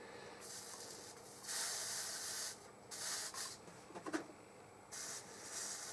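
Flux sizzling in several short hissing spurts as a hot soldering iron and molten solder touch the fluxed join of a whitemetal casting; the longest spurt lasts about a second. A small knock comes about four seconds in.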